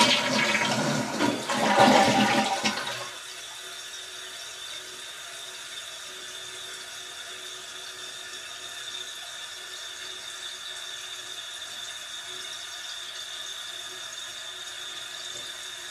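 Toilet flushing with a loud rush of water for about three seconds, then the tank refilling through the newly replaced float valve (fill valve): a steady hiss of inflowing water with a thin, steady high whine.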